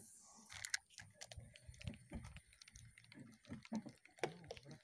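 Faint scattered clicks and taps of a baitcasting rod and reel being cast and handled, with a short hiss about half a second in.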